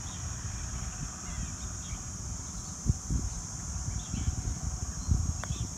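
Wind rumbling on the microphone over a steady high-pitched buzz and a few faint bird chirps, with one light click near the end as a putter strikes a golf ball.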